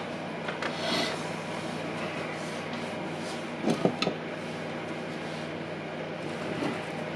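Steady background hum with a few light clicks and taps as small parts are handled on the bench, including a brief cluster of louder taps about four seconds in.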